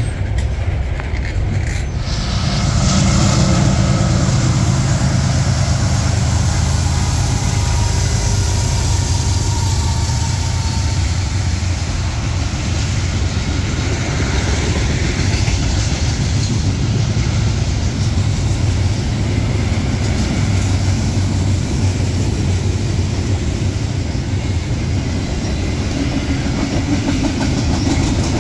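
A freight train's double-stack and single-stack container cars rolling past in a steady, continuous rumble of wheels on the rails.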